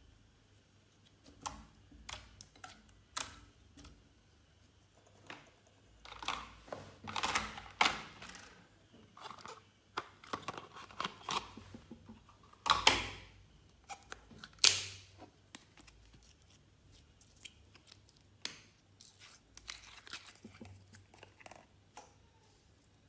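Glossy slime being pressed, stretched and mixed by hand, giving irregular sticky clicks, pops and crackles, with a few louder squelches about halfway through.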